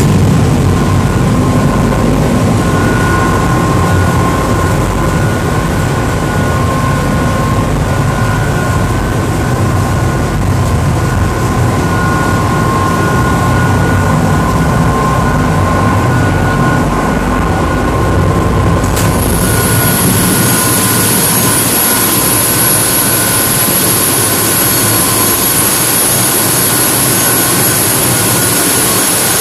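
Loud, steady noise of a crew boat's diesel main engines running underway, with a steady hum in it. About two-thirds of the way through it turns abruptly into a much louder, hissing engine-room roar with high whines over it.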